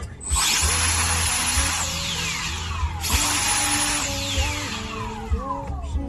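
Handheld cordless turbo jet blower switched on twice, a few seconds apart. Each time it starts abruptly with a loud rush of air and a high whine, and the whine then falls in pitch as the fan spins down. Soft background music plays underneath.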